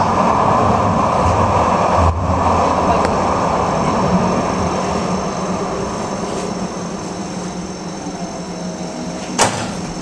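Interior running noise of a two-car light-rail train on its track: a steady rumble of wheels and running gear that slowly fades as the train slows into a stop. A sharp knock comes near the end.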